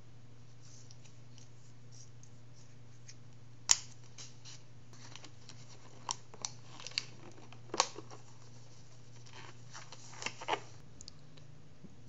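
Scissors snipping a rubber balloon, with one sharp snip a little under four seconds in. Scattered light clicks and rubbery snaps follow as the balloon is stretched by hand, over a faint steady low hum.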